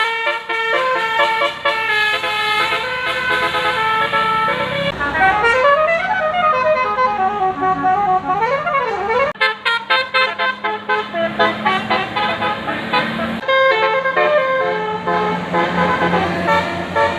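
A bus's 'telolet basuri' musical air horn playing a quick melody of short notes. From about five to nine seconds in it gives a siren-like wail that rises and falls, then goes back to the tune.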